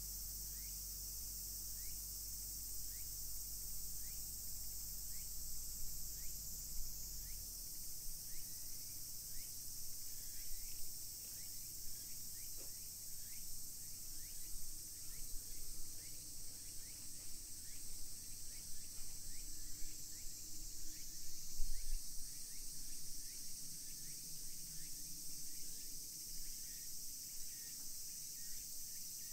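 Steady high-pitched insect chorus in summer woodland, with a short chirp repeating about once a second. A low rumble underneath stops about seven seconds in.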